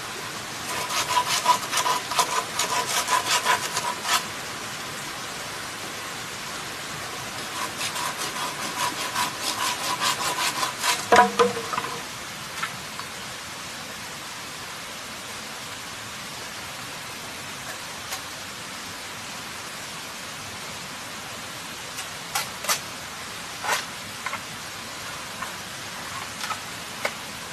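Hand saw cutting through a green bamboo pole in quick back-and-forth strokes, in two spells of a few seconds each. The second spell ends in one loud knock with a short ring. After that there is a steady hiss, and a few sharp knocks near the end.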